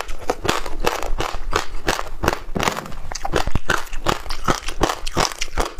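Close-miked chewing of a mouthful of passionfruit seeds, crunching and crackling in quick succession, about four crunches a second.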